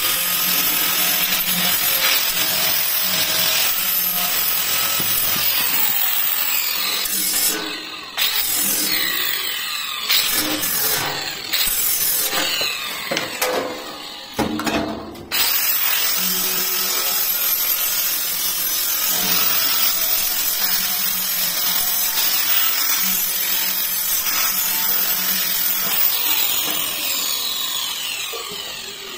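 Handheld electric angle grinder grinding stainless steel sheet, the disc running steadily against the metal. There are several short dips in the middle where the disc eases off the metal, then steady grinding again, tailing off at the very end.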